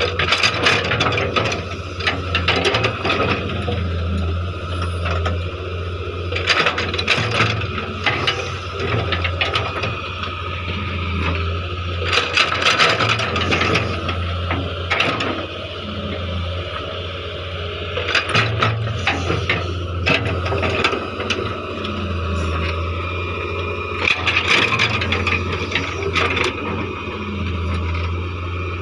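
Hitachi EX100 excavator's diesel engine running steadily, with repeated bursts of metal knocking and rattling from the working machine several times along the way.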